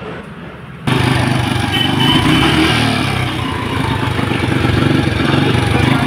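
A motorcycle engine running steadily, cutting in suddenly about a second in.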